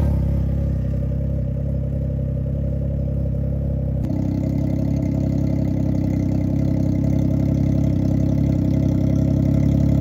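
Can-Am Ryker 900's three-cylinder Rotax engine idling steadily just after a cold start. The tone shifts abruptly about four seconds in.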